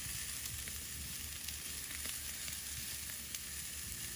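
Glowing charcoal fire hissing steadily, with faint scattered crackles, over a low rumble.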